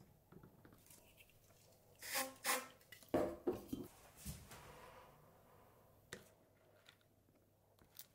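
Hands handling a self-adhesive LED light strip, a plastic glue bottle and an acrylic panel. There are two short rustles about two seconds in, then a quick run of light plastic taps and knocks, and later a single soft click.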